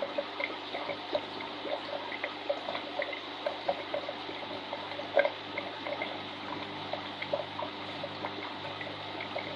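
Aquarium water trickling and bubbling, with frequent small irregular plops and one louder plop about five seconds in, over a faint steady low hum.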